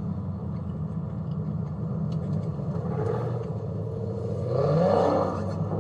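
Dodge Scat Pack's V8 engine running at low speed with a steady drone, then revving up with a rising note about four and a half seconds in.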